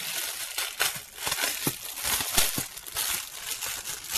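Clear plastic wrap crinkling and crackling as it is pulled and peeled off a cardboard box, with many small irregular crackles.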